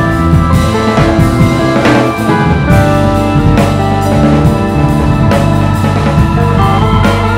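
Live band playing loudly: drum kit with kick and snare driving a steady beat under sustained electric bass and electric guitar.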